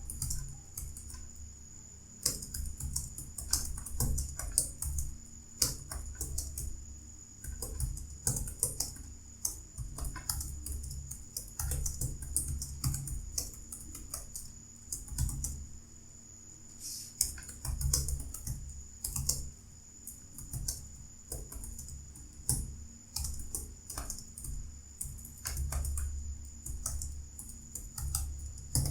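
Fast typing on a computer keyboard: keystrokes clicking several times a second in irregular runs with brief pauses, over a steady high-pitched whine.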